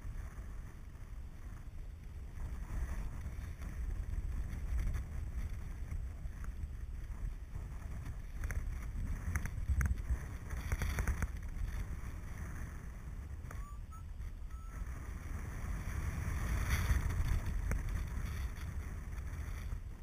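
Airflow buffeting the microphone of a camera on a paraglider in flight: a steady low rumble that swells and eases, loudest about three-quarters of the way through.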